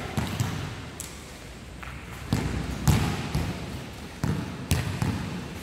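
Several basketballs bouncing on a hard court floor, an irregular series of thuds that echo in a large hall.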